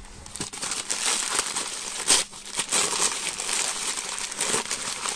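Packing paper crumpling and crinkling as it is pulled off a plastic toy part, with a sharper, louder rustle about two seconds in.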